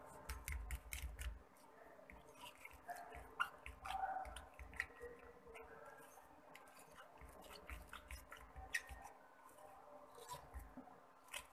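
Faint sound of a metal spoon stirring and beating thick batter in a glass bowl: soft squelching with light clicks and scrapes of the spoon against the glass, in spells with short pauses.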